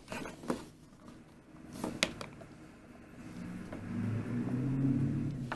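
A few sharp plastic clicks as the back casing of a Sony Handycam camcorder is pried at by hand. From about halfway in, a low steady hum comes up and becomes the loudest sound.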